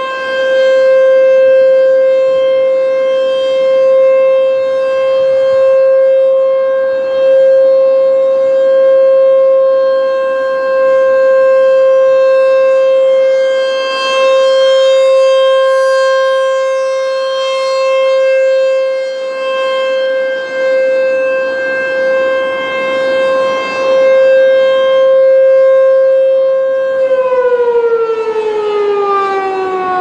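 American Signal ASC T-128 rotating electromechanical warning siren sounding its steady alert tone, growing louder and softer as the horn turns past. About 27 seconds in it starts winding down, the pitch falling steadily as the alert ends.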